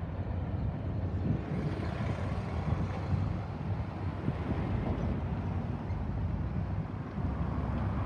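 Cars driving over a railroad grade crossing, with wind buffeting the microphone: a steady low rumble.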